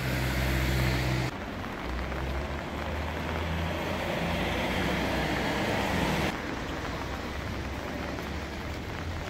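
City street traffic noise: cars running on a wet road with a steady low hum beneath. The sound changes abruptly about a second in and again about six seconds in.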